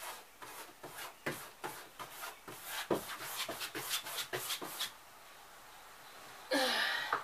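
Quick rubbing or brushing strokes of a hand-held tool against the trailer's interior wall, about four a second, stopping about five seconds in. A louder rustling sound follows near the end.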